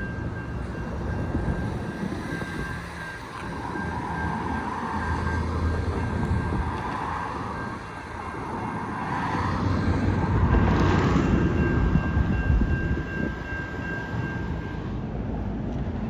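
Passing vehicle noise: a rumble that swells and fades, loudest past the middle, with a thin steady high whine that stops near the end.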